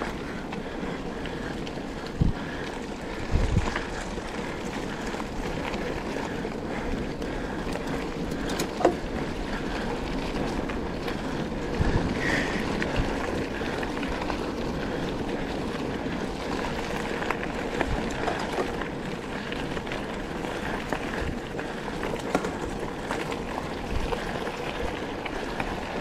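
Steady wind rush on the microphone over the rolling noise of mountain bike tyres on a forest trail, with a few knocks and bumps from the bike now and then.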